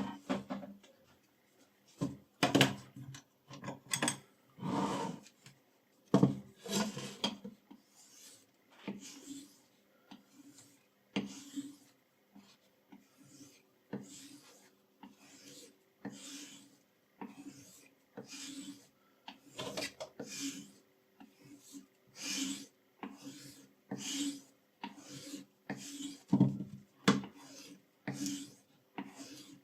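A steel knife blade stroked again and again across a sharpening stone, giving a raspy scrape about once a second.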